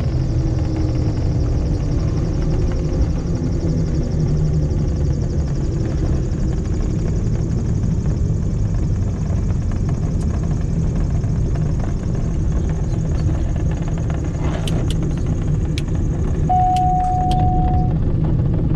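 Diamond DA42's twin engines and propellers heard from inside the cockpit, running at low power as the aircraft rolls out and taxis after landing; the engine note falls slightly in the first few seconds. Near the end come a few sharp clicks and a short steady beep.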